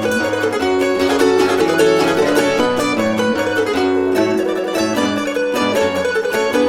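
Gusli music: a Russian plucked zither playing a melody in quick plucked notes over ringing strings.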